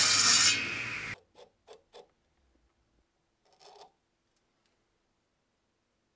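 Table saw cutting through a wood block, the cut ending about half a second in and the spinning blade cutting off abruptly just after a second. Then three faint light taps and a brief rustle.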